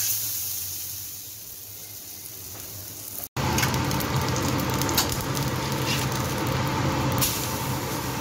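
Besan-batter-dipped bread sizzling on a hot iron tawa: a sharp hiss as the bread goes onto the hot pan that slowly fades, then, after a brief cut about three seconds in, a louder steady sizzle with a low hum under it.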